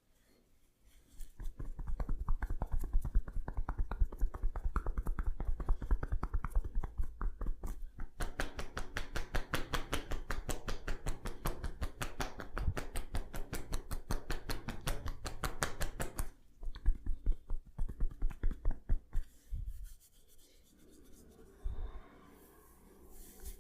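Hands briskly rubbing and scratching through hair and scalp in a head massage, in quick rhythmic strokes. The strokes start about a second in, are fastest and most even through the middle, and thin out near the end.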